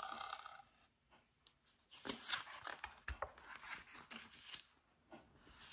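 A large picture-book page being turned by hand, paper rustling and crinkling softly for about three seconds, starting about two seconds in.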